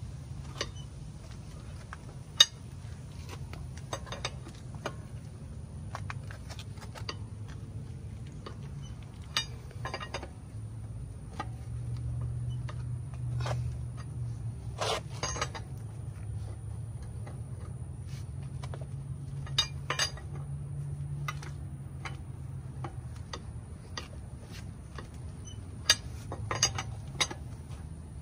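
Steel lug wrench clinking and scraping on the lug nuts and alloy wheel as the front wheel's nuts are tightened by hand: scattered sharp metal clicks, the loudest about two seconds in, over a steady low hum.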